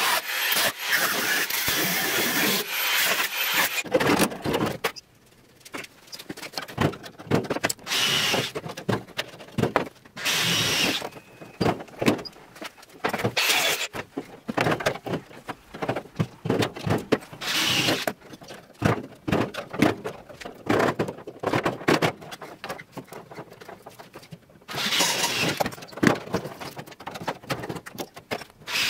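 Angle grinder cutting through the rusted sheet steel of a car's rear wheel arch for about five seconds. This is followed by clanks, knocks and scraping of loose metal being worked by hand, with short bursts of noise in between. Another steady noisy stretch comes near the end.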